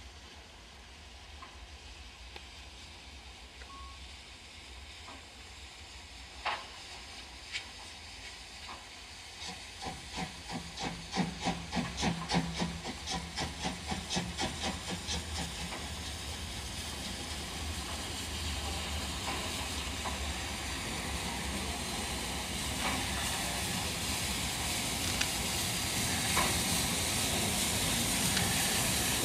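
A steam locomotive approaching. Its exhaust beats run at about three a second for several seconds, then give way to a steady steam hiss and running noise that grows louder as the engine comes alongside.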